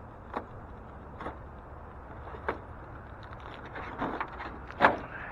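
Cardboard advent-calendar compartment being opened and its contents handled: a few short crackles and rustles of cardboard and packaging, the loudest near the end, over a steady low background rumble.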